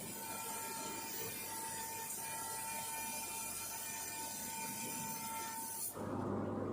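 Fiber laser welding machine running: a steady hiss with a thin steady whine, which cuts abruptly near the end to a lower, denser noise with a low hum.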